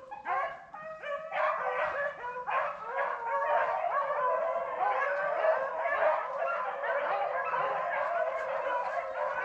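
A pack of rabbit-hunting hounds baying together while running a rabbit's track. There are separate barks in the first couple of seconds, then a steady, overlapping chorus of many dogs.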